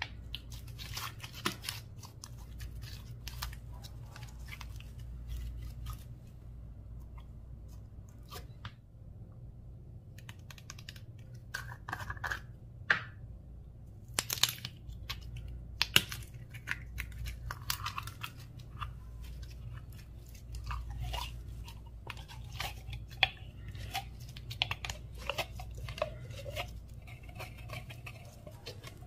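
Slime with mini balls mixed into it being squished and mixed, giving irregular crackling, popping clicks and squelches, over a low steady hum.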